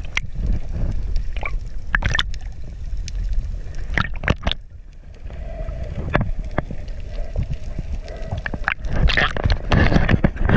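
Underwater sound through a GoPro's waterproof housing while snorkeling: a muffled, rumbling wash of water with scattered clicks and knocks. A faint steady hum runs through the middle, and about nine seconds in it turns louder and busier with splashing and bubbling as a hand moves by the camera near the surface.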